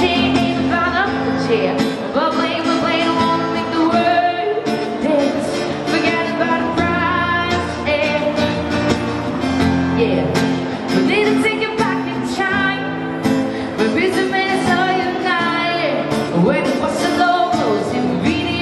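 A woman singing an upbeat pop song into a handheld microphone, accompanied by acoustic guitar, amplified through a PA.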